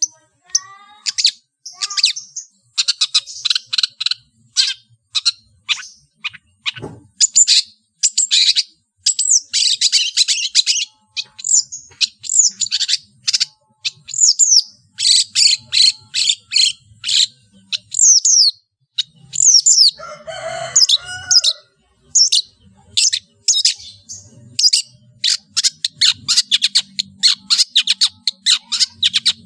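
Long-tailed shrike (cendet) singing a fast, varied song of sharp chirps, quick sweeping notes and trills, packed with mimicked calls of other birds. A lower, harsher call comes about twenty seconds in.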